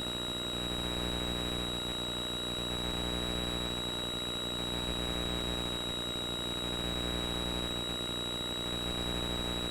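Cessna 172's four-cylinder piston engine running steadily at level-flight power, heard inside the cabin. A steady high electronic whine and a faint chirp repeating about every two-thirds of a second sit over it.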